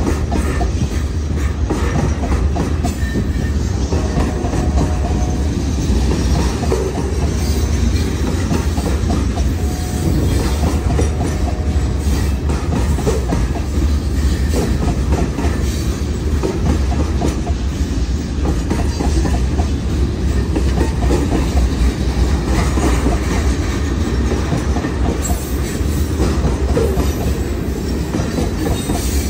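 Open-top hopper cars of a freight train rolling past: a steady rumble of steel wheels on rail with a continuous clickety-clack over the rail joints. There are a couple of faint, brief wheel squeals.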